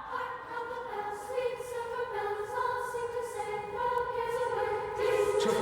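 Soft choir music: voices holding long, sustained chords.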